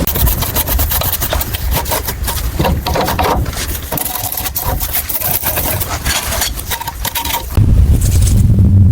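Scraping, rubbing and knocking of hand work with tools. About seven and a half seconds in, a motor starts with a loud, steady low hum.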